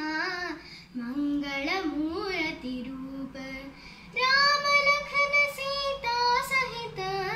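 A young girl singing a Hindu devotional chant solo, in melodic phrases that rise to louder, higher held notes about four seconds in.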